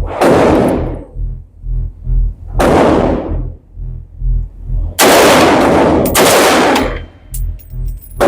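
Gunshots, each a sudden loud blast with a long fading tail: one at the start, one about two and a half seconds in, and a longer blast about five seconds in that lasts nearly two seconds. Background music with a steady beat plays throughout.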